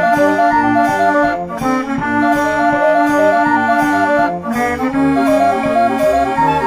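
Background music: an instrumental tune with a melody stepping up and down over a steady bass beat.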